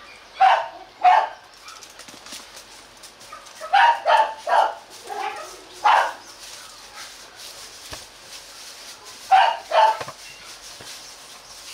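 A dog barking in short, sharp barks that come in small groups with pauses between: two about half a second in, a run of several around the middle, and two more near the end.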